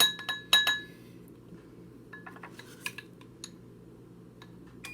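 Kitchen utensils and a small bowl clinking: a quick run of sharp, ringing taps in the first second, then scattered lighter clicks and knocks.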